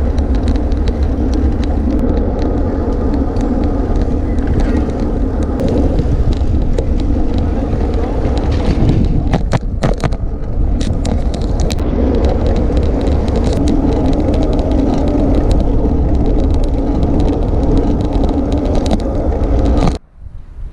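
Steady wind rush and road noise on a camera microphone while riding a road bicycle, heavy and rumbling at the low end with scattered clicks. It drops away sharply near the end.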